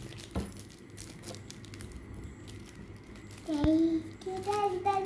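Plastic gift packaging crinkling as it is handled and cut open with scissors. A high-pitched voice is heard from about three and a half seconds in.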